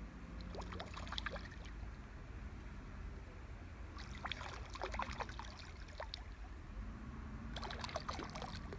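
Water splashing and trickling in three short bursts as a hooked carp is played to the bank.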